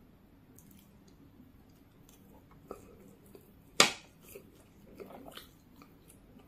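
Close-up mouth sounds of a person eating soft cooked Maggi instant noodles by hand: small wet clicks and chewing, with one sharp, loud smack about four seconds in as a mouthful of noodles is drawn in.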